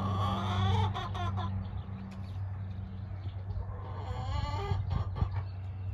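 Two long, wavering animal calls, one at the start and another about four seconds in, over a steady low hum.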